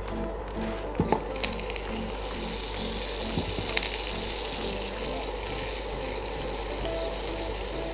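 Butter cubes melting and sizzling in a hot pan, the hiss setting in about a second in, with a few clicks of utensils against the pan. Background music plays throughout.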